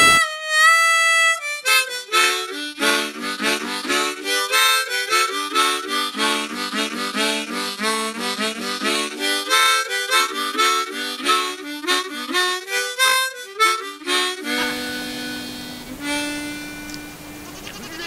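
Harmonica music: a held note at the start, then a quick run of short notes, ending on long held notes near the end.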